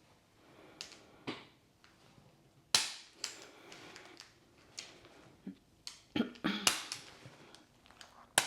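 Sharp cracks and pops from a chiropractic neck adjustment: joints cavitating as the neck is manipulated. There are several over the few seconds; the loudest comes about three seconds in, and a quick cluster follows near the end.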